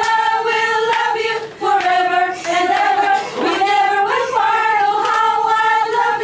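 A group of people, mostly women, singing a song together from lyric sheets, holding long notes with short breaks between phrases.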